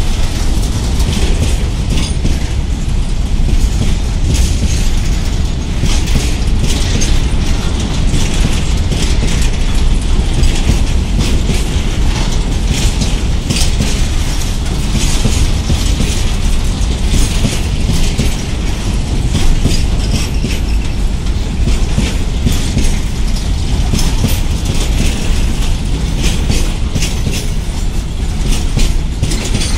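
Covered goods wagons of a long freight train rolling past at close range, with a steady low rumble and dense, irregular rattling and clattering from the wheels and wagon bodies.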